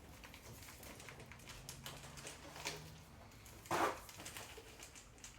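Dry-rub seasoning being shaken from a shaker onto chicken: a run of light taps and rattles, with a sharper knock a little before four seconds in.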